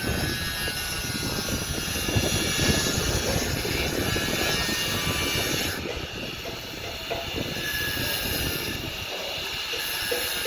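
Heavy machinery running: a steady, rough engine noise, typical of an excavator's diesel engine working. The upper hiss drops off abruptly about six seconds in.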